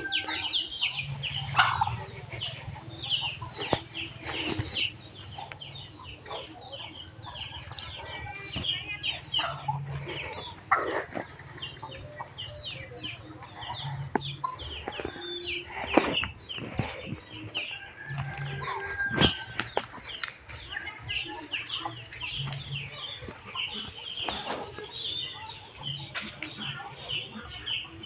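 Chickens clucking and calling, with a dense run of short, high chirps throughout. A few sharp knocks stand out in the middle.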